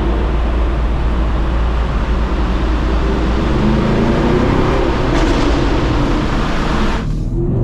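Chevrolet Camaro SS 1LE's 6.2-litre LT1 V8 pulling hard, loud and coarse through the exhaust. About seven seconds in, the harsh upper part of the noise cuts off abruptly and the engine note starts climbing again.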